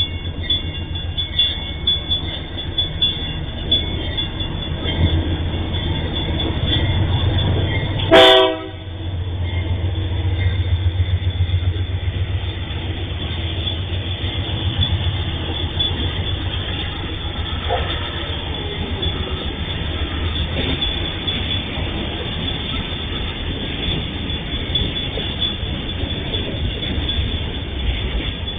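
Diesel-electric locomotives of an MRS freight train passing close by, their engines running with a steady low drone. There is one short, loud blast about eight seconds in.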